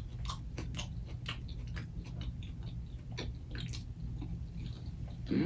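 Close-miked chewing of a lettuce-wrapped chicken sandwich: irregular wet mouth clicks and smacks, a few a second. Near the end comes a brief, louder mouth sound.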